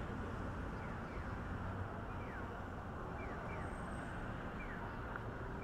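City street ambience: a steady wash of traffic and crowd noise, with faint short falling chirps now and then.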